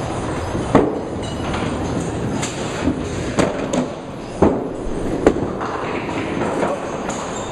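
Duckpin bowling alley: a steady rumble of balls rolling on the wooden lanes, with about five sharp clacks of pins being struck.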